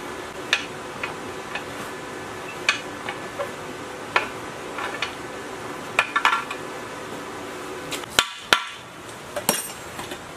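Metal tools and parts knocking and clinking against a scrapped diesel engine as it is pried apart by hand: scattered sharp knocks, some with a brief metallic ring.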